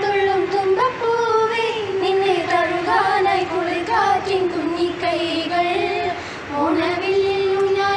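A group of young voices, mostly girls, singing together in unison, in phrases with long held notes.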